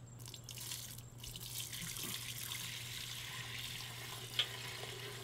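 Hot used frying oil being poured slowly from a metal fryer pot through a strainer into another pot: a steady pouring splash that builds over the first second or two. One sharp click comes about four seconds in.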